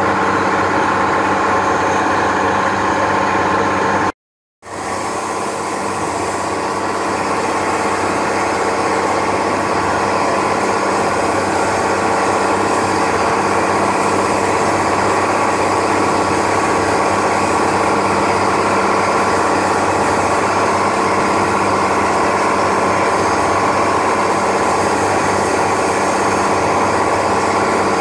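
Motorboat engine running steadily at cruising speed over the rush of water from the wake. The sound cuts out for about half a second about four seconds in, then fades back in.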